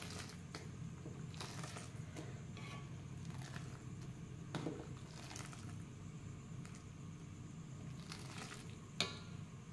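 Metal ladle stirring thick coconut-milk chicken curry in a large wok: soft sloshing and scraping strokes every second or so, with one sharp click about nine seconds in. A low steady hum runs underneath.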